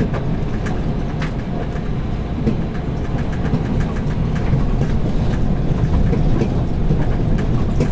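Scania P360 dump truck driving with its body empty: the diesel engine runs with a steady low rumble, under scattered clicks and rattles.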